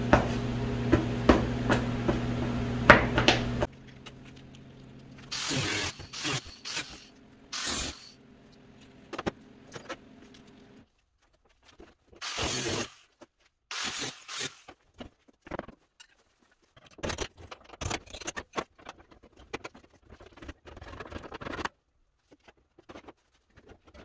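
Sheet metal of an old truck cab being cut with a handheld cutoff tool. A steady motor hum with clattering runs for the first few seconds, then the cutting comes in short hissing bursts with pauses between them.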